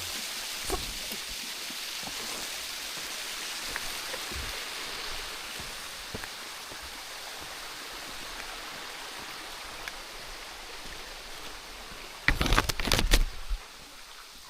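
Steady rushing of falling water from a waterfall, a constant hiss that eases slightly partway through. About twelve seconds in, a loud burst of thumps and rustling lasts just over a second.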